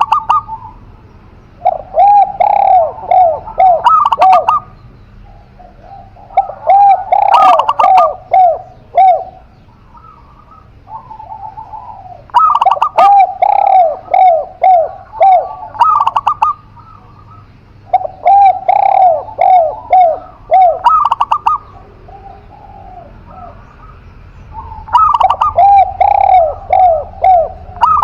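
Zebra dove and spotted dove cooing. Five phrases, each a quick run of rolling, arching coos, come about every five to six seconds with short pauses between.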